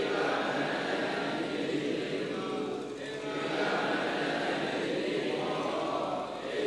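Many voices chanting Pali scripture together in a steady recitation, pausing briefly for breath about three seconds in and again near the end.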